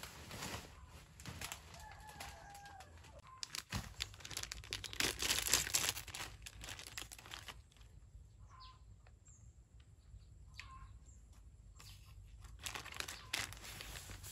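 Plastic snack wrapper crinkling and tearing as it is handled and opened, loudest from about four to seven seconds in and again near the end. A few short bird calls sound faintly in between.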